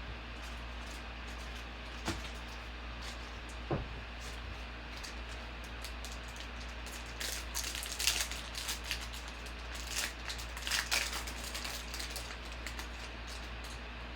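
Trading card pack wrappers crinkling and cards being handled, with a cluster of crackly rustles about halfway through and two single clicks before it, over a steady low hum.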